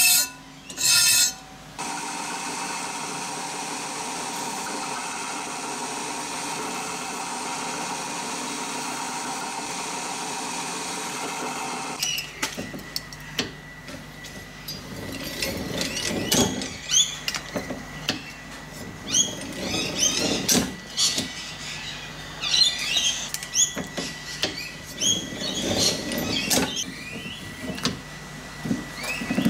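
Two strokes of a hand file on a sheet-metal edge, then a steady even hum for about ten seconds. From about twelve seconds in, a hand-cranked slip roll rolls a strip of sheet metal into a curve, with irregular squeaks and clicks from the rollers and the sheet.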